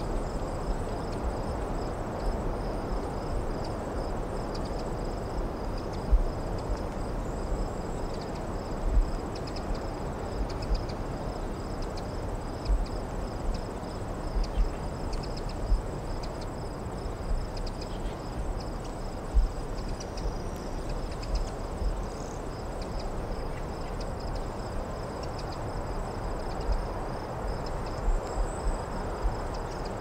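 Crickets chirping in a steady, pulsing trill over a low, even hum of distant road traffic far below. Brief low thumps come every few seconds.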